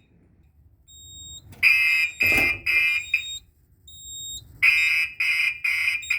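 Gentex fire alarm horn strobe sounding in march time: two groups of four short, buzzy blasts, about two a second, with a pause of about a second and a half between the groups. The horn is a little bit scratchy, and a faint high whine sounds in the pauses.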